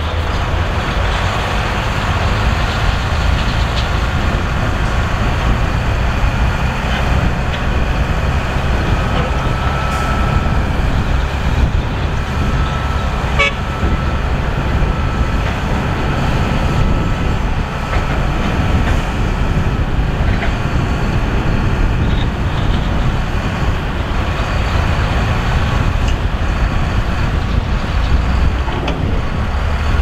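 Heavy diesel dump truck engine running steadily with a deep, even rumble.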